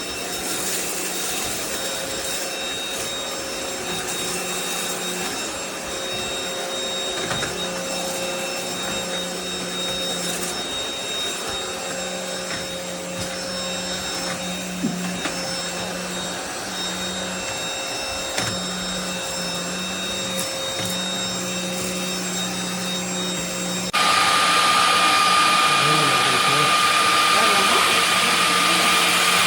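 Cordless stick vacuum running steadily with a motor whine. About 24 seconds in it suddenly gets louder, with a higher steady whine.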